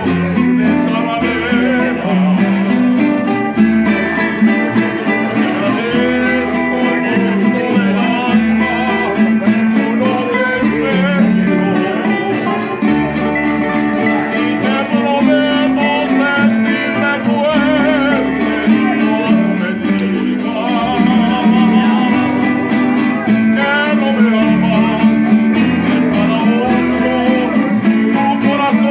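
Live mariachi trio: a guitar and a vihuela strummed in a steady rhythm over the deep plucked bass notes of a guitarrón, with a man singing a melody with a wavering vibrato.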